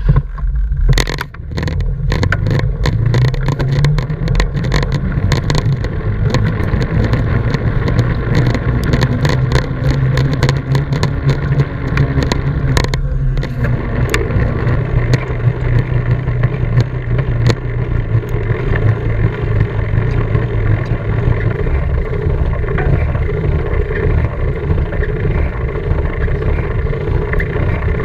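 Mountain bike riding on tarmac, heard from a camera on the bike or rider: a steady low rumble and hum from the knobbly tyres rolling on the road, mixed with wind buffeting the microphone. Sharp rattles and knocks from the bike come through in the first few seconds.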